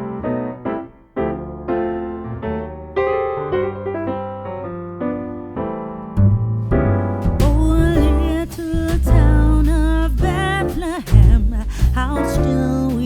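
Background music: electric piano chords, joined about six seconds in by a heavier beat and a wavering sung melody.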